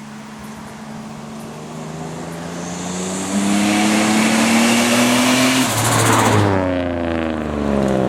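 Turbocharged Mitsubishi Magna accelerating hard, its engine note rising steadily with a turbo hiss building over it. About six seconds in the throttle lifts and the turbo flutters in a brief rapid chatter as the engine note drops.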